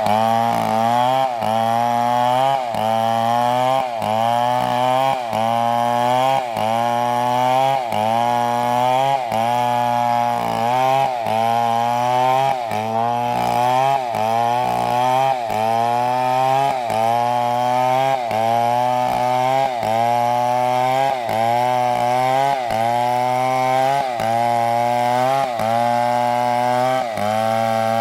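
Stihl MS720 two-stroke chainsaw running at high revs while cutting wood. Its pitch sags and recovers about once a second.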